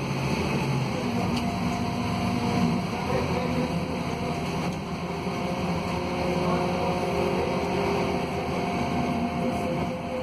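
Scania DC09 five-cylinder diesel of a Scania K280UB city bus running under load on a climb, heard from inside the passenger cabin as a steady drone with a few whining tones that hold and shift slowly in pitch.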